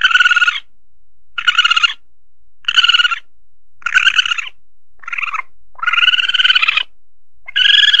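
Asian palm civet (musang pandan) calls played as a hunting lure: a series of short, high, trilling cries, about one a second, the last two drawn out longer.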